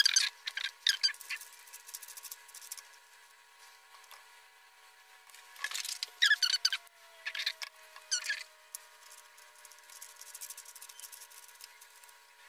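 Small drone parts being handled and fitted by hand: carbon-fibre frame plates and small aluminium standoffs clicking and rubbing against each other in short bursts, with lighter ticking near the end.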